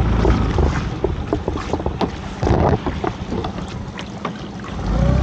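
Small fishing boat's engine running, easing off about a second in and picking up again near the end, with water splashing along the hull and scattered sharp knocks as the boat is manoeuvred onto a lobster-pot line.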